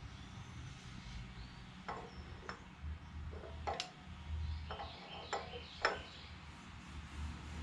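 Scattered light clicks and taps of hand tools and parts being handled during motorcycle engine reassembly, about seven over five seconds, over a steady low hum.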